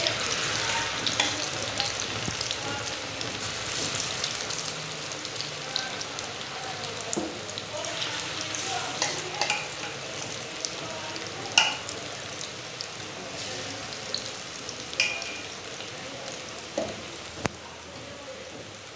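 Onion-and-besan pakoras deep-frying in hot oil in a kadai: a steady sizzle dotted with small pops and crackles, with one sharper pop a little past the middle. The sizzle slowly eases toward the end as the fritters cook.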